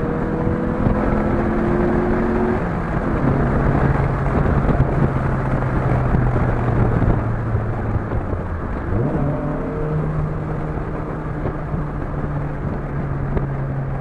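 Chevrolet Vectra 2.2 8V four-cylinder engine with a sports exhaust running under way, its note mostly steady. The pitch drops about three seconds in and sweeps quickly up about nine seconds in.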